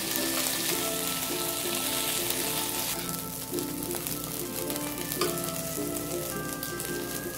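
Chicken pieces shallow-frying in a little oil in a pan, sizzling steadily, with a sharp tap of a utensil about five seconds in.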